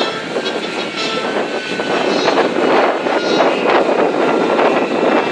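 Lockheed U-2's jet engine running at idle: a steady rush of engine noise with a faint high turbine whine over it.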